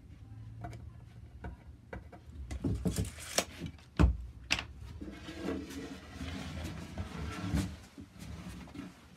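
Tool handling on a wooden workbench: small clicks and rustles, then a sharp knock about four seconds in as a tape measure is put down on the bench, followed by a few seconds of shuffling and scuffing as the person moves away.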